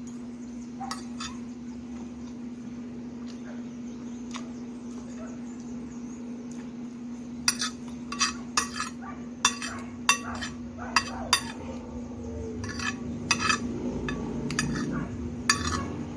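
Cutlery clinking against dishes: a series of sharp clinks, a few early on and many in the second half, over a steady low hum.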